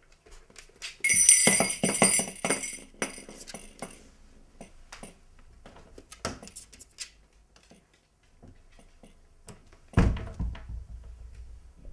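Poochie Bells, a strap of small jingle bells hung by a door, jingling loudly for about two seconds, followed by scattered light knocks and a dull thud near the end.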